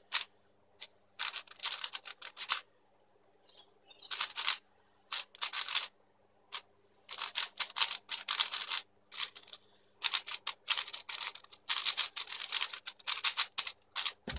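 Quick clicking and clacking of a YuXin Blue 4x4 speed cube's layers being turned by hand. The turns come in rapid bursts separated by pauses of about a second.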